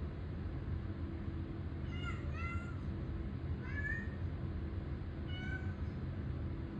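A cat meowing in three bouts of short calls, the first a quick double, at a closed bedroom door it wants opened. A steady low hum runs underneath.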